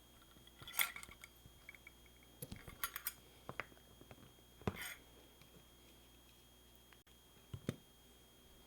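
Scattered light clicks and taps of small parts and tools being handled on a work surface, with a cluster about a second in and another around three seconds, while a tiny dropped screw is searched for.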